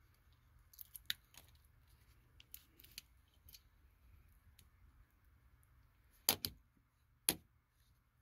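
Clicks and snaps of hand tools working Cat5e wires into a keystone network jack: a scatter of small clicks, then two loud sharp snaps close together a little after six seconds in and one more about a second later.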